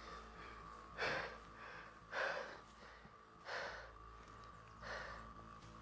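A man gasping for breath in pain: four strained breaths, about one every second and a quarter.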